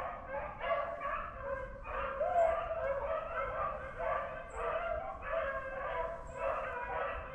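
A pack of beagles baying on a trail, several voices overlapping without a break: hounds running a swamp rabbit.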